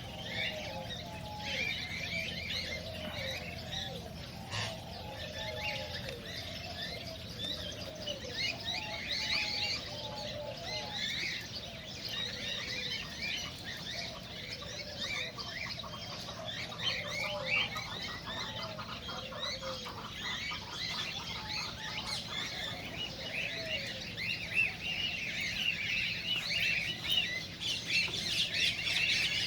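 A group of cockatiels chirping and calling non-stop, many short high chirps overlapping, with lower gliding calls mixed in during the first two-thirds. A faint steady hum runs underneath.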